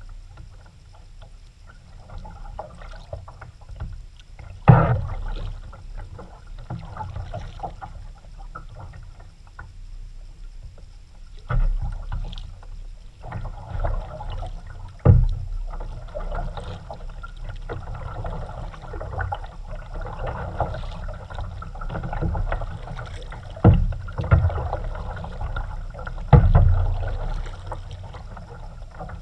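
A kayak being paddled, with the irregular splash and drip of paddle strokes in the water. Four sharp knocks come through it, the loudest about five seconds in and again near the end.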